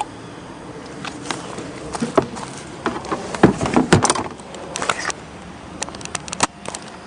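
A run of irregular knocks and clicks close to the microphone over a low steady background, densest and loudest about three and a half to four seconds in.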